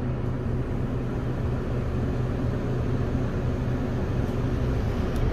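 Steady low hum and rumble of a city bus heard from inside the passenger cabin.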